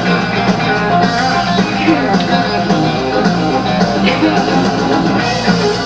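Instrumental break of a country-rock song, led by guitar over a steady beat.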